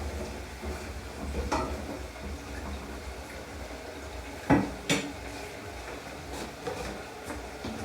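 Metal utensil clinking and scraping against a cooking pot, with two sharp clinks in quick succession about four and a half seconds in.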